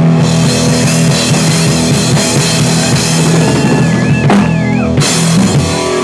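Live rock band playing loud: a drum kit with electric guitar and bass guitar.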